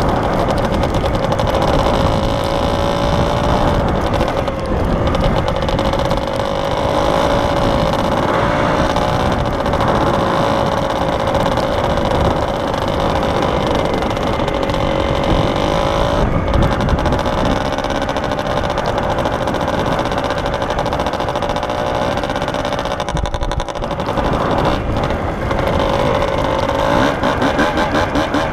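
Kawasaki KDX two-stroke dirt bike engine running at a steady pitch under light throttle, with the pitch and loudness wavering near the end.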